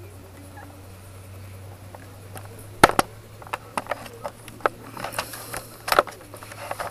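A low steady hum, then from about three seconds in a run of sharp, irregular clicks and knocks as objects are handled close to the microphone.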